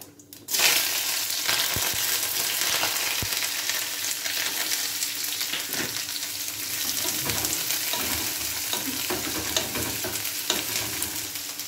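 Chopped onion, curry leaves and ginger dropped into hot oil with cumin seeds in a kadai: loud sizzling that starts suddenly about half a second in and keeps up steadily. Light taps and scrapes of a wooden spatula stirring the onions run through it.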